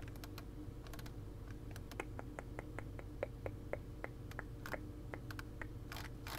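Faint clicking of a computer mouse and keyboard, including a run of evenly spaced mouse scroll-wheel ticks, about five a second, from about two seconds in, over a faint steady hum.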